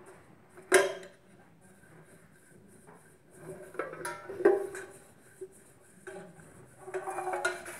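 Clinks and scraping against a pressure cooker's metal vessel as its inside is greased with butter. There are two sharp metallic knocks with a short ring, about a second in and again past the four-second mark, and a run of quicker clattering scrapes near the end.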